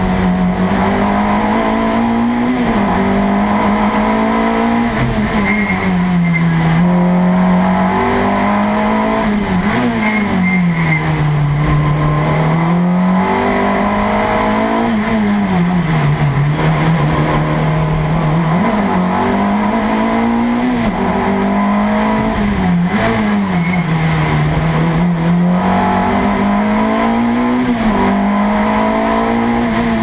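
Peugeot 205 race car's four-cylinder engine heard from inside the cabin, at full race pace. Its note climbs under acceleration and drops off again as the driver lifts and brakes for each corner, several times over, with quick dips at gear changes.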